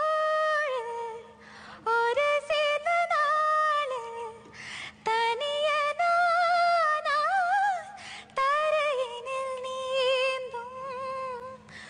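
A young woman singing solo in a Tamil film melody, with long held wordless vowel notes decorated with quick wavering turns. The phrases are broken by short breaths.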